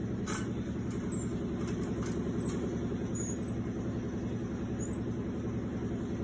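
A steady low mechanical hum from a running motor or appliance. Over it come a few short, very high chirps from a marmoset and a few light clicks as it climbs the wire cage.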